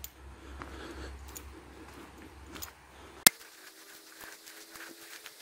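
Faint footsteps and rustling through grass on the old railroad bed. A single sharp click comes a little over three seconds in, after which a faint steady buzz remains.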